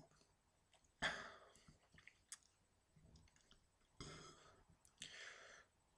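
Near silence, with a few faint clicks and short soft noises: one about a second in, a tick a little after two seconds, and two more around four and five seconds.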